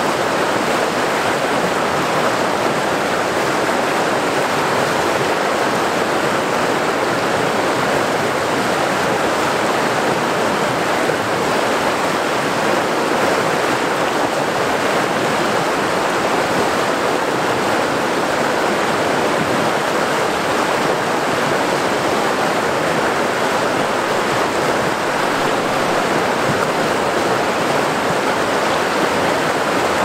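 River rapids, with whitewater rushing steadily over rocks.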